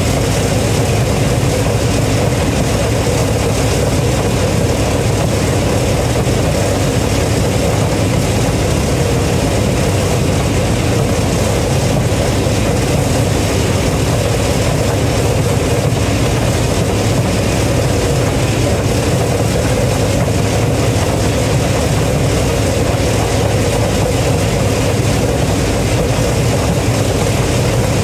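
Combine harvester running steadily: a constant, loud engine-and-machinery drone with no change in pitch or level.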